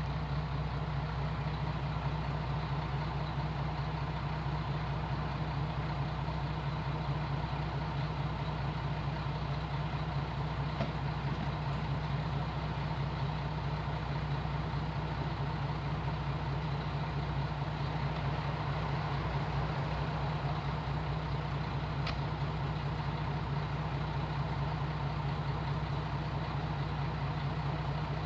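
An engine idling steadily at a constant low hum.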